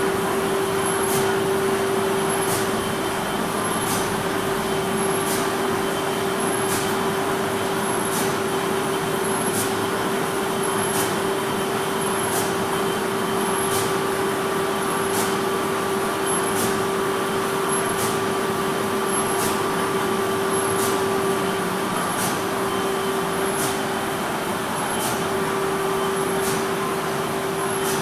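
Wolf paper sheeter with an inline printing unit running: a steady mechanical hum with a strong steady tone, and a sharp tick repeating a little more than once a second.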